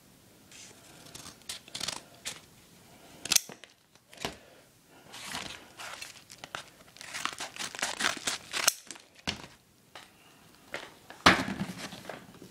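Mail packages being torn open by hand: irregular bursts of tearing and crinkling, with a sharp snap about three seconds in and a loud rip near the end.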